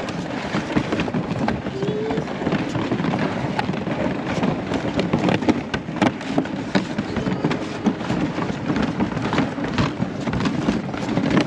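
Crunching steps over snow-covered lake ice: many irregular crunches and clicks over a steady rushing noise, cutting off suddenly at the end.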